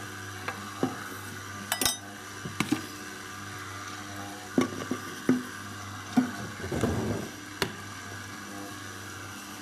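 Electric boilie dough mixer running with a steady low hum. Its spinning fingers work extra meal into still-sticky dough, with irregular knocks and clinks against the stainless steel pot.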